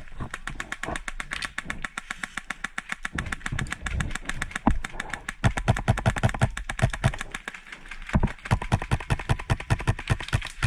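HPA-powered airsoft guns firing on full auto: long strings of rapid, evenly spaced shots, broken by short pauses a few times.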